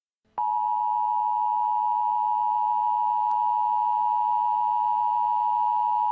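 Electronic alert tone from a simulated emergency broadcast: one high, steady, unwavering tone that switches on abruptly a moment in, after dead silence. A few faint clicks sit under it.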